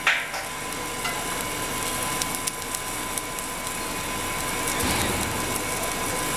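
Steady machine noise from an automated pipe welding station, with a thin constant high tone and a few faint ticks.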